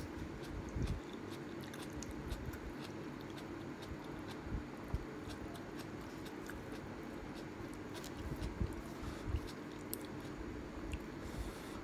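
Close-miked chewing of ramen noodles, with many small wet mouth clicks and a few soft thumps.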